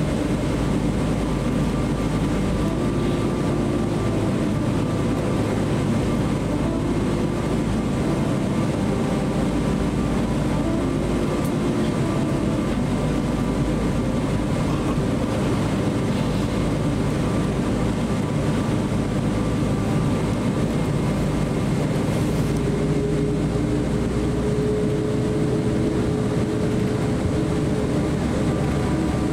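Steady low cabin rumble inside a Boeing 777-300 as it taxis slowly, engines at idle. A faint steady hum joins in about three quarters of the way through.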